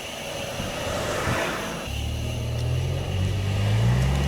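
Steady rushing noise, then about two seconds in a heavy vehicle's engine comes in abruptly close by, a low hum that slowly rises in pitch.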